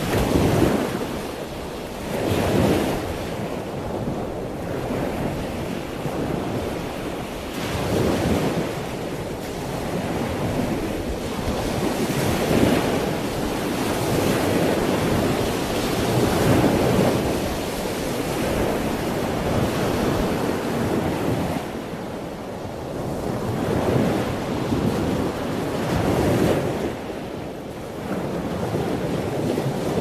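Big ocean waves breaking, a dense rush of surf that swells and eases every few seconds, with wind blowing on the microphone.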